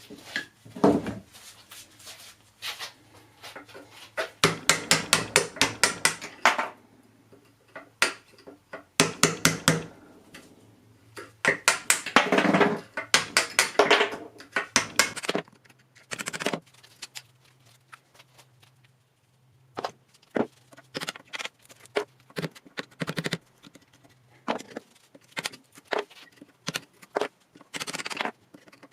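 Hammer blows on metal, in quick runs of several strikes a second, broken by pauses with scattered single knocks and scraping.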